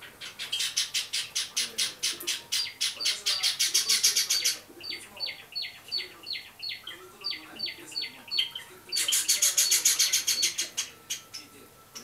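Java sparrow chick, about a month old, calling. A fast run of sharp chips lasts about four seconds. Then come separate downward-sliding notes, two or three a second, and then another fast run of chips.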